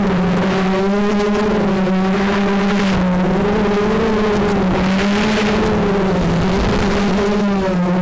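FPV racing quadcopter's electric motors and propellers whining steadily, the pitch wavering up and down as the throttle changes.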